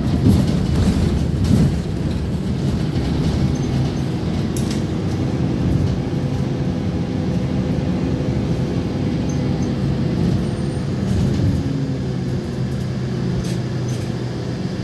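Inside a moving gas-engined (CNG) bus: steady engine drone and road noise with a faint steady whine, and a few louder jolts and rattles in the first couple of seconds.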